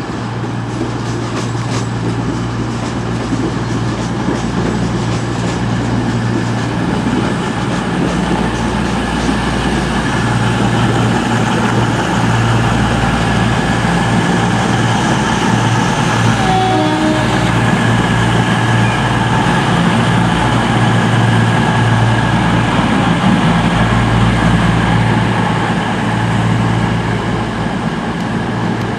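Diesel multiple-unit trains, CrossCountry Voyagers, running slowly through the station with a steady low diesel engine drone and rail noise. A short falling series of tones sounds about halfway through.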